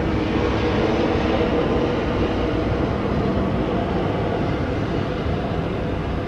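Gulfstream G650's twin Rolls-Royce BR725 jet engines running in reverse thrust during the landing roll: a steady jet roar with a low hum under it, easing slightly toward the end.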